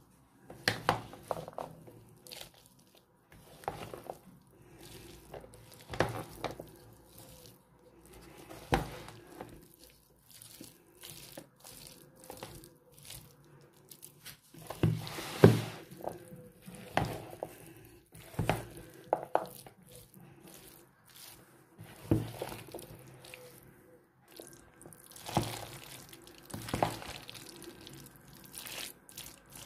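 A thick, mayonnaise-dressed salad of diced potatoes, pickles, carrots, peas and chicken being stirred in a bowl: irregular wet squelches and scrapes, one stroke every second or two, loudest about halfway through.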